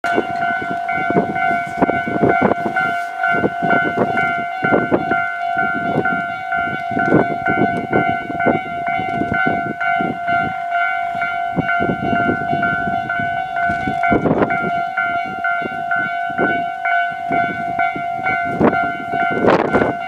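Japanese railway level-crossing warning bell ringing continuously, with a steady ringing tone, over the knocking and rumbling of a passing train's wheels on the rails.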